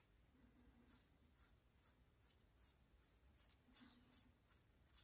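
Faint, scratchy strokes of a razor blade cutting through lathered stubble on the neck, about two short strokes a second.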